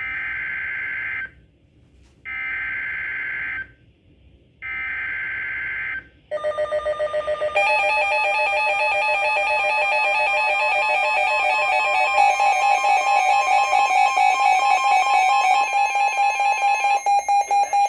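NOAA Weather Radio EAS alert for a Severe Thunderstorm Warning: three short, screechy SAME digital header bursts, about a second each with a second's gap between them. About six seconds in, a loud, continuous, pulsing electronic alert tone from the weather radio takes over. Near the end the tone's pulsing quickens.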